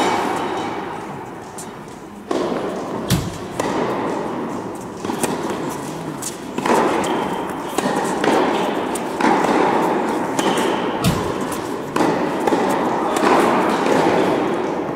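Tennis rally: racquets striking the ball again and again, about every one to two seconds, each hit echoing through a large indoor hall.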